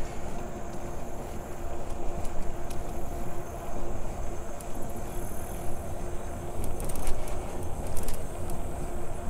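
Wind buffeting the microphone and tyre noise from a bicycle riding along a trail, with a steady hum underneath and a few light clicks about seven to eight seconds in.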